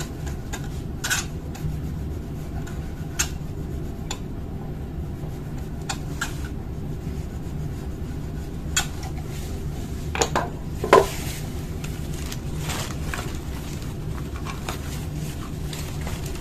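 Sporadic plastic clicks and knocks from a laser-printer toner cartridge being handled and taken apart into its two halves, the loudest click about 11 seconds in.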